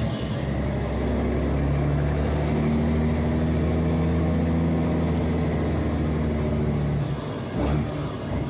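Mercedes-Benz 1634 truck's six-cylinder OM 457 diesel running through a straight-through exhaust, holding a steady low note while the truck is driven. About seven seconds in the note falls away, and a brief burst of noise follows.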